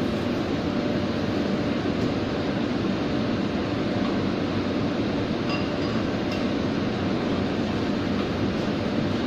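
Steady loud roar of a commercial kitchen's gas range and extractor hood, with a few light metal clinks around the middle as a pan is stirred.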